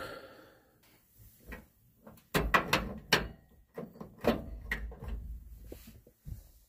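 Knocks, clunks and rustling from someone getting up and moving around inside a pickup-truck camper shell. A cluster of sharp knocks comes about two and a half to three seconds in, with a few more and lighter handling after.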